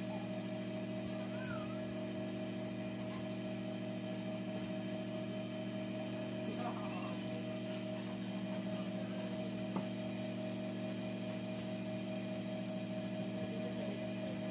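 Steady mains hum of an industrial overlock sewing machine's electric motor running idle while the machine is not stitching. A single sharp click comes about ten seconds in.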